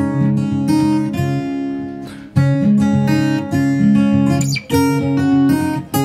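Background music: an acoustic guitar strumming chords, with a short drop in level about two seconds in.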